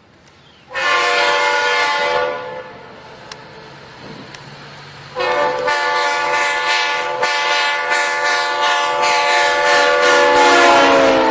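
Train horn with several tones sounding together: a short blast, then a long blast about five seconds in whose pitch drops near the end as the train passes.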